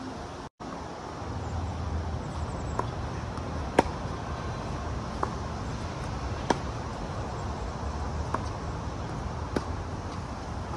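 Tennis rally: tennis balls popping off racquet strings and the court, about six sharp pops spaced one to two seconds apart, the loudest about four seconds in, over a steady background rush.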